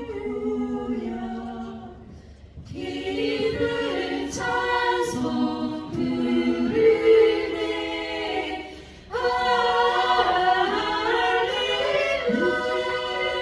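A cappella choir singing an Easter hymn medley in held chords, with no instruments. The singing pauses briefly about two and a half seconds in, then again about nine seconds in, before the next phrase begins.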